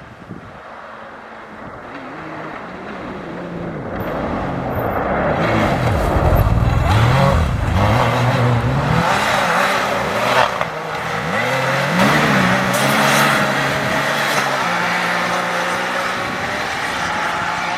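Rally-raid race vehicle's engine approaching and passing at speed, revving up and dropping back several times with gear changes, over a steady rush of tyre noise.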